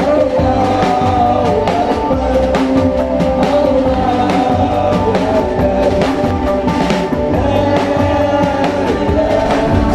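Live band playing a religious song: a keyboard melody and drum kit on a steady beat, with a voice singing over them.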